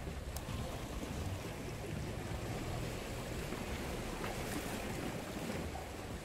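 Wind buffeting the microphone over small sea waves washing against shore rocks.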